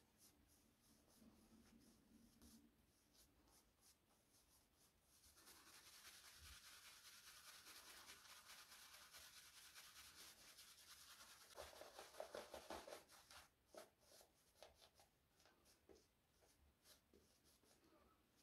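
Synthetic shaving brush (Pearl SBB-96) working shaving-soap lather onto the neck: soft, rapid brushing strokes, faint at first, continuous from about five seconds in and loudest near the end of that stretch, then dying back to a few faint strokes.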